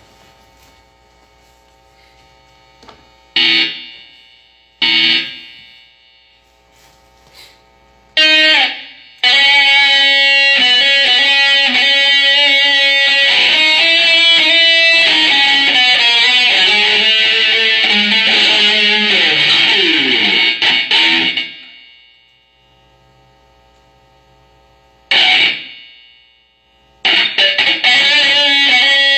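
Electric guitar played loud. Two single chords ring out and die away, then a long stretch of fast continuous playing fades out. After a pause another chord rings, and the playing starts again near the end.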